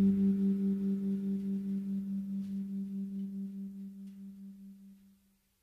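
The final held low note of the background music, pulsing with a steady waver and fading out until it is gone about five seconds in.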